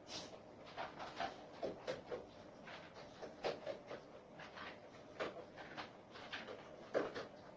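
A dog eating, with irregular crunching and chewing clicks, a few a second, the loudest about seven seconds in.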